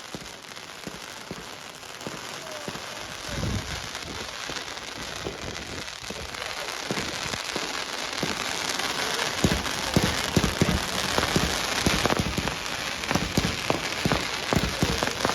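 Fireworks crackling and popping in a dense stream, building about halfway through into a rapid barrage of sharp bangs.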